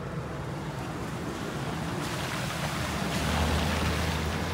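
An SUV drives slowly through shallow water flowing across a street, its tyres swishing and splashing through the water. The noise grows louder over the last couple of seconds as the vehicle's engine hum comes in close.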